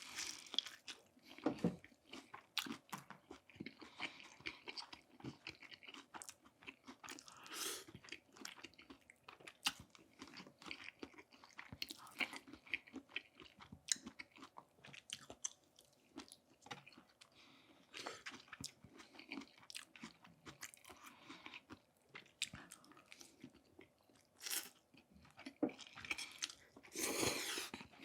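A person biting into and chewing crispy fried chicken: a steady run of crunches and mouth clicks, with a few louder crunches among them.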